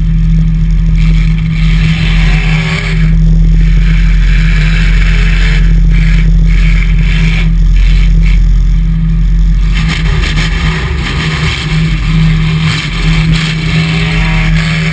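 Demolition derby pickup's engine running loud inside the stripped cab, with the revs rising and falling.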